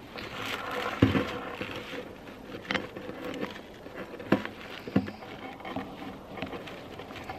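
Handling noise as gloved hands screw a camping stove's fuel line connector onto the pump of a liquid-fuel bottle: rustling of gloves with a few sharp clicks and knocks of metal and plastic fittings, the clearest about a second in, then at about three, four and five seconds.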